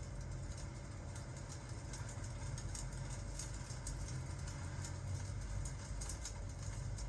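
Fireplace crackling, with irregular small pops over a steady low rumble, mixed with rain.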